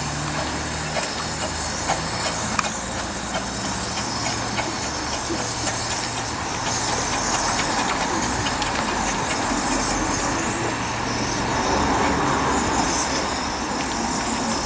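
Miniature 15-inch gauge steam locomotive running slowly over points, with steam hissing and the wheels clicking over rail joints.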